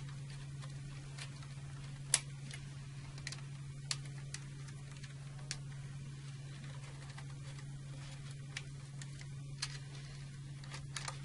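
Small plastic clicks and taps, about eight spread irregularly with the sharpest about two seconds in, as wire lead connectors are pushed into the numbered slots of a circuit breaker's secondary terminal bracket. A steady low hum lies under them.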